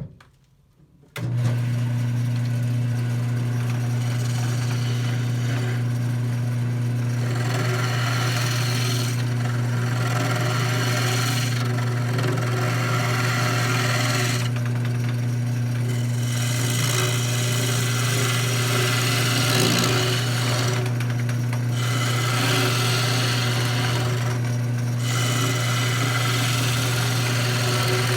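Wood lathe switching on about a second in and running with a steady hum, while a hollowing tool cuts into the spinning wood in spells broken by short pauses, hollowing out a turned wooden birdhouse.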